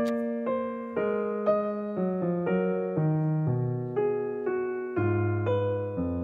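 Background piano music, a steady run of notes starting about twice a second, each fading away before the next.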